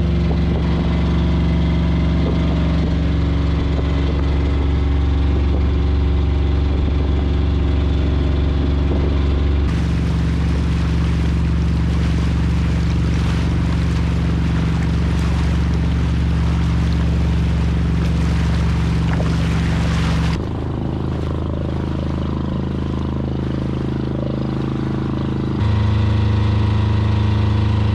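Engine of a small wooden fishing boat running steadily under way, a constant hum with water rushing along the hull. The hum changes abruptly about ten seconds in, again about twenty seconds in, and near the end.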